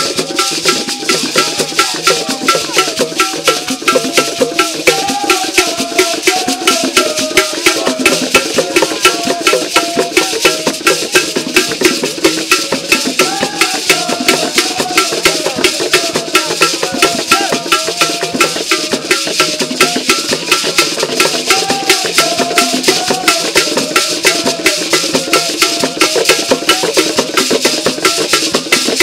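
Traditional hand-drum ensemble playing a fast, steady rhythm with shakers or rattles, with a wavering melody line carried over the beat.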